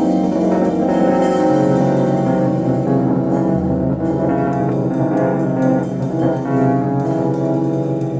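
Instrumental music played back through Virtual HiFi Cobra compact loudspeakers: layered held notes over a strong, steady low bass note that comes in about a second and a half in.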